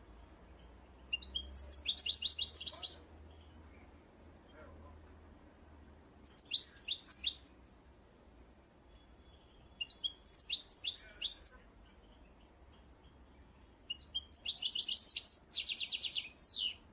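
A small songbird singing: four phrases of quick, high trilled notes, each lasting a second or two, coming roughly every four seconds.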